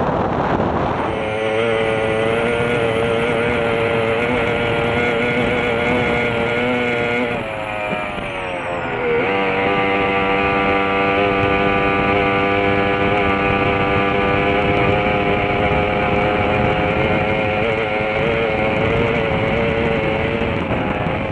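Formula 1 tunnel-hull racing boat's outboard engine running hard at high revs, heard onboard over rushing wind and water. About seven seconds in its pitch falls and dips for a second or two, then comes back up and holds steady.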